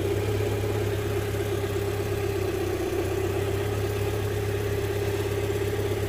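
Land Rover Freelander 1.8 K-series four-cylinder petrol engine idling with a steady hum. The idle is described as lumpy, a fault being traced to the camshaft position sensor (code P0340).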